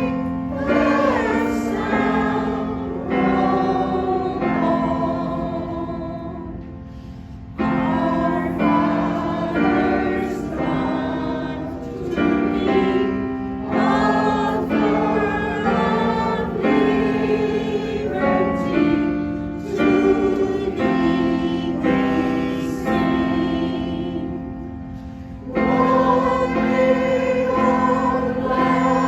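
Choir singing in harmony, with long held chords. The sound fades at the end of a phrase and comes back in with a new one about seven and a half seconds in and again about twenty-five seconds in.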